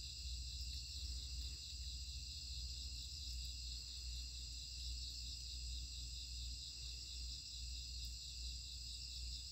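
Crickets chirring in a steady, high-pitched chorus over a low background rumble.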